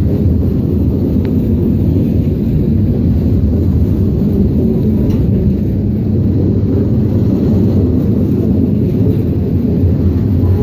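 Pipe-loaded flatcars of a freight train rolling past close by: a loud, steady low rumble of steel wheels on rail.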